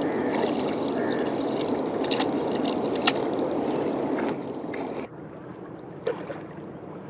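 Steady rushing of river water, with a few sharp splashes or clicks. About five seconds in it cuts abruptly to a much quieter, softer water sound.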